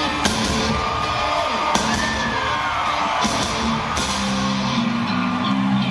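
Live rock band playing a heavy electric guitar riff over drum hits, with yells and whoops from the crowd.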